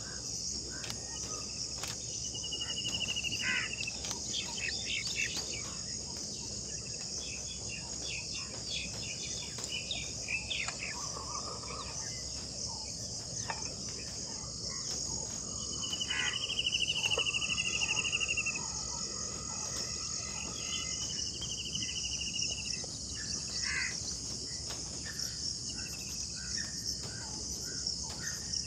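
A steady, high-pitched insect chorus, like crickets, with several rapid trilled bird calls over it. The loudest trill comes about two-thirds of the way through.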